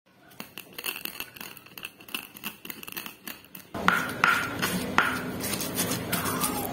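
Stone pestle crushing and grinding shallots, garlic, candlenuts and white peppercorns in a stone mortar (cobek and ulekan). First comes a run of quick light knocks. From about four seconds in there are louder sharp stone-on-stone strikes with a brief ring, about three a second, over the scrape of the paste.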